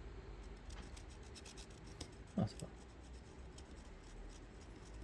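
Pencil lead scratching in light, quick strokes over the scraped pads of a burned-out LED on a bulb's circuit board, laying down graphite to bridge the dead LED so the string lights again. A short vocal sound about two and a half seconds in.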